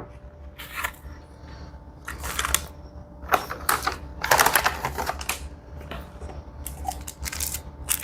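Thin plastic drink-mix packet crinkling and rustling as it is handled, in irregular bursts with crisp clicks.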